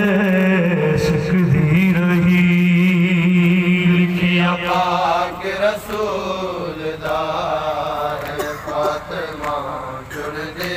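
A man's voice chanting a mourning lament through a microphone and horn loudspeaker, holding a long low note. About halfway through the amplified voice drops away, leaving weaker, broken men's voices.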